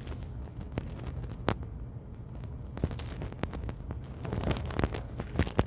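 Scattered light clicks and knocks at an irregular pace, coming more often near the end, over a low steady hum.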